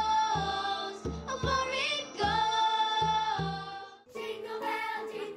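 Children's show choir singing held notes over a steady hand-drum beat. The song fades out about four seconds in and quieter singing follows.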